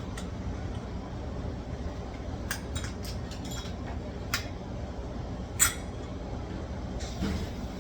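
A few light metallic clicks and clinks as the lock's metal parts are handled, the sharpest about two thirds of the way through, over a steady low hum.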